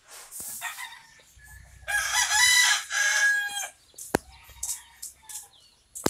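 A rooster crowing once, loud, about two seconds in, with fainter clucks before it. A single sharp click follows about a second after the crow.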